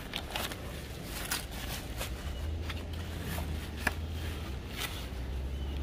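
Bubble wrap and packing paper crinkling and rustling in quick, irregular crackles as a metal exhaust pipe is lifted out of its cardboard box, with a low steady hum underneath from about two seconds in.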